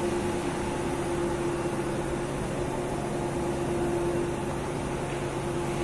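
Steady machinery hum in a ship's engine room, with one clear held tone over a lower drone and hiss.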